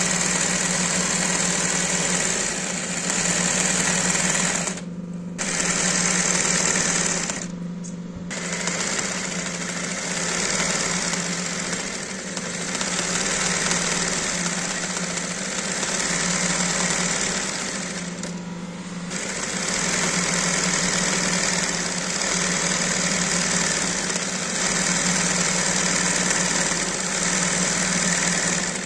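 Industrial embroidery sewing machine stitching at speed, with the fabric stretched in a hoop. The stitching stops briefly three times, about five, eight and eighteen seconds in, while a steady motor hum carries on underneath.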